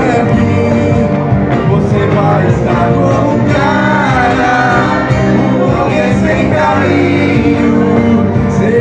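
Amplified live rock band playing loudly and steadily: electric guitars, bass and keyboard through amplifiers, with a singer's voice over them.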